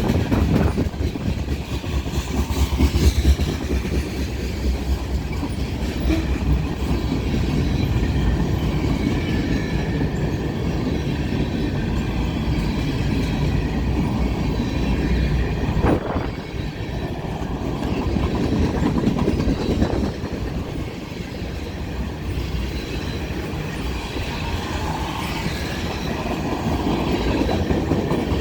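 A CSX freight train rolling past, its steel wheels running over the rails in a steady rumble. One sharp knock comes about 16 seconds in.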